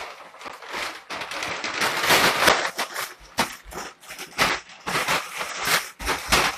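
Brown paper bag crumpling and tearing as a child punches and rips his way out of it: a dense run of crackling paper broken by sharp rips.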